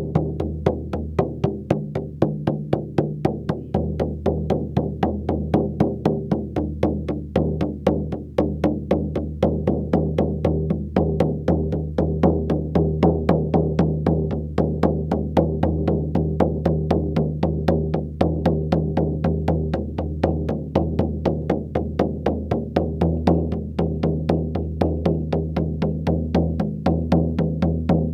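Shamanic hoop drum beaten in a steady, even rhythm of about four strokes a second. Its low tone rings on between the strokes: rhythmic drumming of the kind used for a meditative journey.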